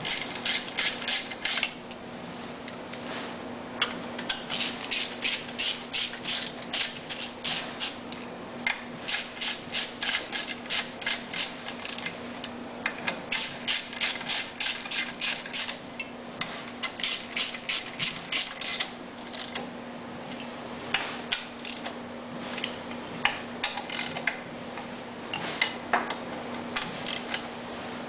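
Hand ratchet wrench turning mount bolts, clicking in quick runs of about four to five clicks a second with short pauses between, over a steady low hum.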